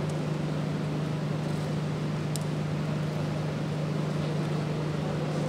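Steady low hum over a constant background hiss, with one faint click about two and a half seconds in.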